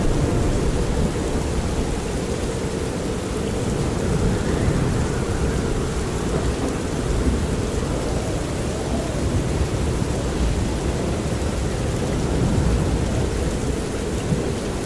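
Steady rain and wind ambience with a deep, fluctuating rumble underneath.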